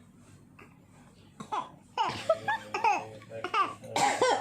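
Laughter in short repeated bursts, a baby's laughter among it, starting about a second and a half in.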